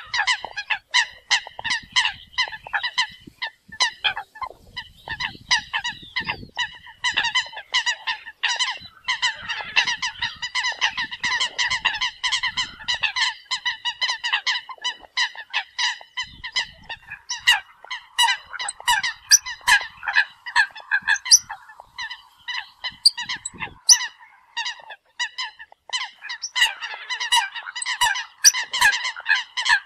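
Eurasian coots calling: short calls repeated several times a second, many overlapping, the calls used to gather the flock.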